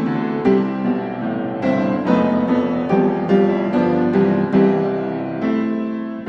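Background piano music: a gentle melody of struck notes that ring and fade, a new note or chord about every half second to second.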